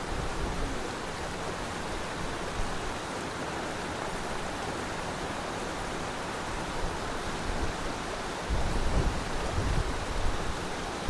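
Waterfall rushing with a steady, even roar of falling water. From about eight and a half seconds in, low rumbling bumps rise above it.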